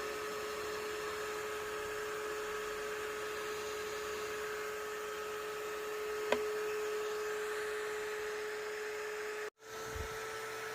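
Small electric motor running with a steady whine and hum, most likely the hydraulic pump motor of a Lesu ET35 RC excavator. There is a single click about six seconds in and a brief break in the sound near the end.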